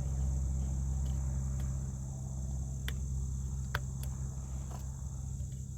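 Steady high-pitched insect drone over a loud, low, steady hum, with two sharp clicks near the middle.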